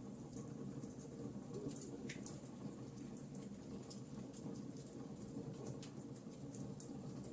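Fire in a fireplace crackling: frequent small sharp pops over a steady low rumble of the flames.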